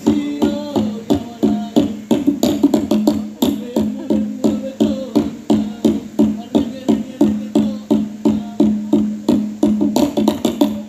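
Live Yospan dance music from a Papuan string band: quick, rhythmic plucked and strummed strings over a steady bass note, with a driving beat of about two accents a second.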